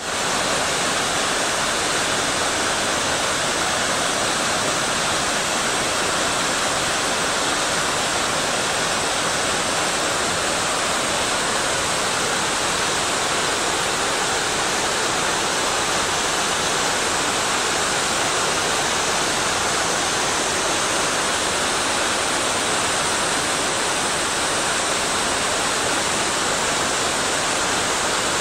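Steady, even rush of mountain water falling and flowing, a constant hiss with no breaks.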